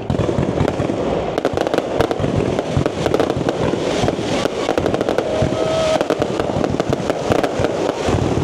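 Fireworks display: a dense, unbroken run of overlapping bangs and crackles.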